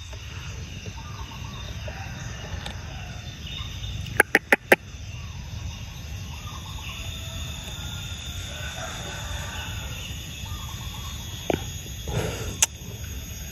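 Birds calling faintly and repeatedly over a steady low rumble, with four sharp clicks in quick succession about four seconds in and two more single clicks near the end.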